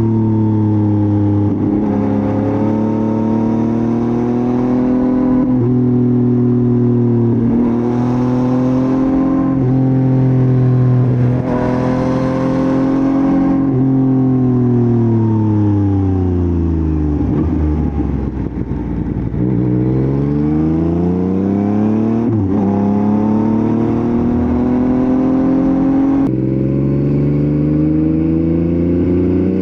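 Motorcycle engine recorded close up on the move, holding roughly steady revs with brief dips, then slowing to low revs about halfway through. It then accelerates again, the pitch rising through three gears with shifts in between.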